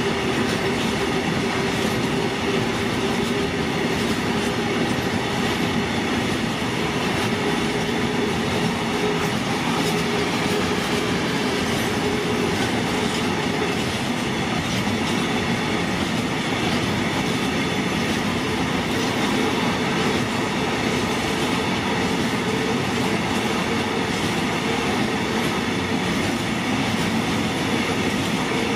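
Freight train of container flatcars rolling steadily past on the rails, a continuous clatter of wheels with a held tone running through it.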